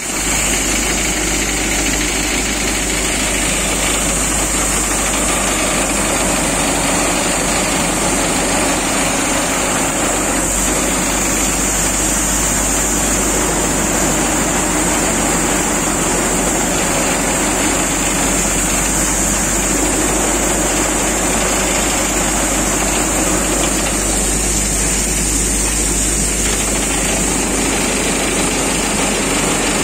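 Diesel tractor engine running steadily under load while it drives a threshing machine, with the thresher's drum and fan running continuously and a steady high hiss above the engine.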